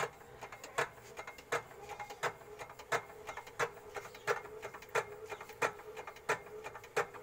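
Hand crank turning a 10 hp single-cylinder diesel engine slowly, with a sharp mechanical click about every two-thirds of a second, under a faint steady hum. The engine is being cranked, not yet running.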